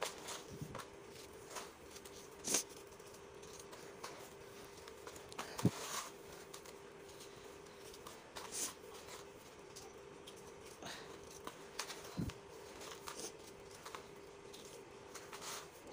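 Fingers raking and crumbling dry, gritty dirt in a basin: faint scratchy rustling with a few louder crunches scattered through, over a steady low hum.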